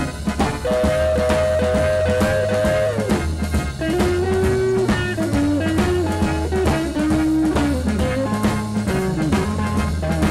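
Live boogie-woogie rhythm and blues by a small jazz band. A horn holds one long note for about two seconds, then plays a line of shorter notes over drums and guitar keeping a steady beat with a walking low bass.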